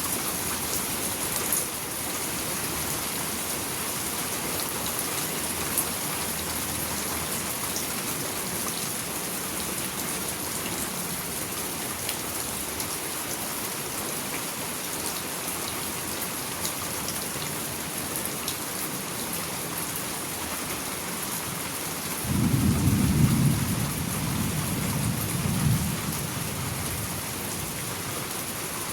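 Steady rain falling with a constant hiss. Near the end a low roll of thunder rumbles for about four seconds, then fades.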